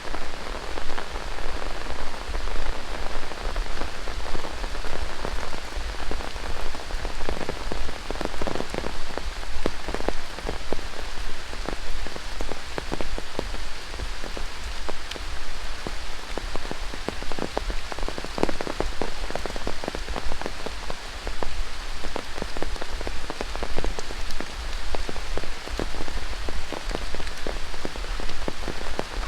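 Steady tropical rain falling through rainforest, with many individual drops spattering close by.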